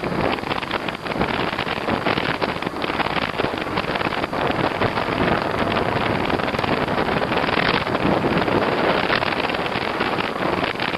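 Wind buffeting the microphone of a moving e-bike: a loud, steady rush with constant crackling.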